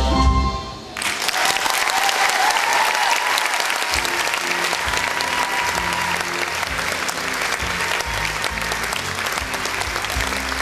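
The song ends on a final chord and, about a second in, a theatre audience starts applauding. Low play-off music comes in under the clapping a few seconds later.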